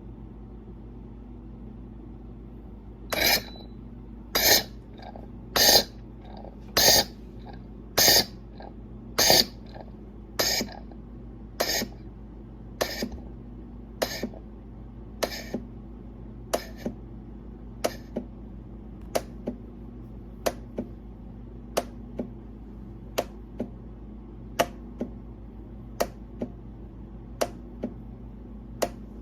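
Espresso machine running with a steady low hum and a hissing spurt about every second and a quarter. The spurts shorten over the stretch until they are only brief clicks.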